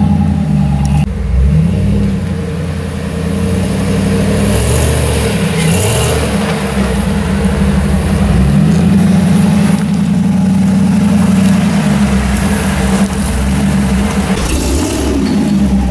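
Jeep Wrangler YJ's engine revving up and down under load as it crawls over rocks and up a steep dirt slope, its pitch rising and falling again and again.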